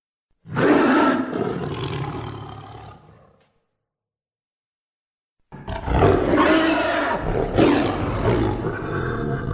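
Two animal roar sound effects used as a cartoon rhino's voice: the first starts about half a second in and fades away over some three seconds, the second starts about five and a half seconds in and runs longer.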